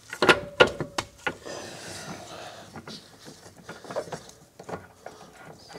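Steel control arm knocking and scraping against its axle bracket as it is pushed to line up, with several sharp metallic knocks, one briefly ringing, in the first second or so, then lighter clicks and scraping. The arm's end will not slip into the bracket because the bracket is too tight.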